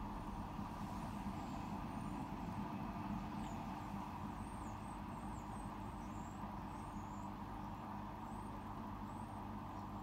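Hotpoint WMFUG 942 washing machine's drain pump running with a steady hum and water rushing through it at the end of the main wash, then cutting off suddenly.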